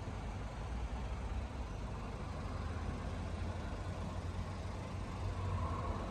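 Volkswagen Tiguan's 1.4 TSI turbocharged four-cylinder petrol engine idling with a steady low hum.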